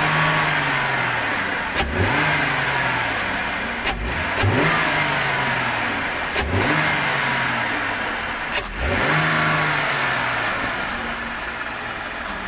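A 2020 Jeep Grand Cherokee's 3.6-litre V6, breathing through its stock airbox, is blipped about five times at roughly two-second intervals, each rev rising sharply and dropping back, then it settles to idle near the end.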